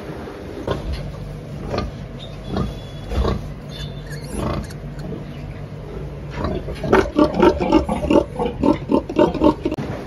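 Pigs grunting: scattered short grunts over a low steady hum, then a quick, loud run of grunts, about four or five a second, for the last three seconds or so.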